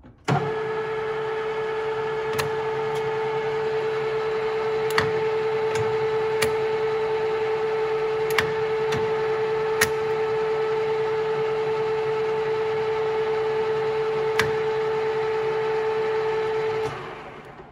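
Harrison M300 centre lathe started up and running steadily with a constant gear whine. It is switched off near the end and winds down over about a second. Several sharp clicks come along the way as the carriage controls are worked.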